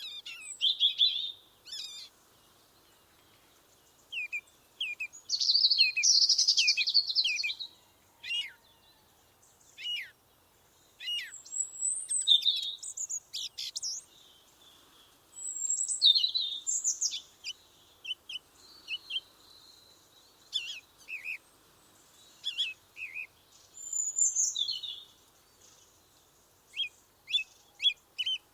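Songbirds singing and chirping: short whistled phrases and quick chirps of varying shapes, coming in clusters with brief quiet gaps between them.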